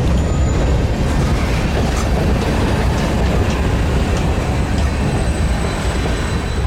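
Freight train rolling by with a steady, heavy low rumble, scattered clicks of wheels over the rail joints, and a thin, faint high-pitched wheel squeal in the second half.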